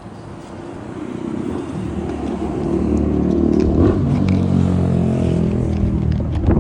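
A bus engine running as the bus draws near. Its note grows steadily louder from about a second in, stays loudest through the second half, and drops away right at the end.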